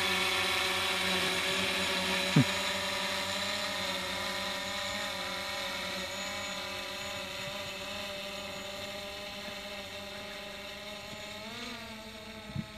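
Quadcopter drone's propellers whining steadily as it climbs away, slowly growing fainter, with a brief waver in pitch near the end. A single sharp click about two seconds in is the loudest moment.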